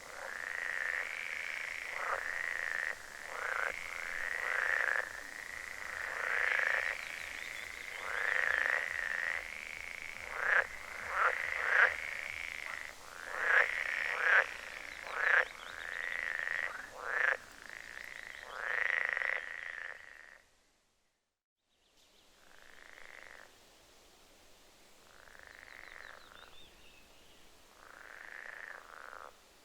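A chorus of frogs croaking, many calls overlapping. About twenty seconds in it cuts out for over a second, then resumes as fewer, fainter calls, roughly one every three seconds.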